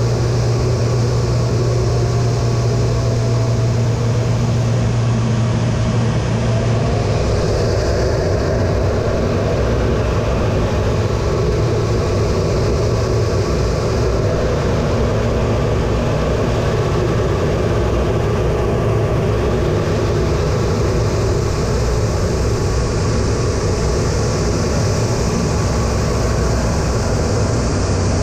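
Steady engine and airflow noise heard inside the cockpit of an A-10 Thunderbolt II in flight, its two TF34 turbofans running with a strong low hum that weakens about seven seconds in.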